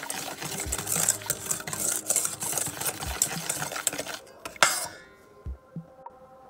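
Wire balloon whisk whipping cream and sugar in a stainless steel bowl: fast, continuous scraping and clinking of the wires against the metal. The beating stops about four and a half seconds in with one louder knock, followed by a few light taps.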